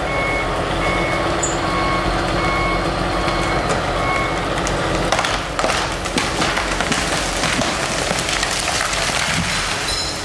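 Heavy machine's engine running steadily, with a backup alarm beeping about once a second for the first four seconds or so. From about halfway in come sharp cracks, typical of wood splintering.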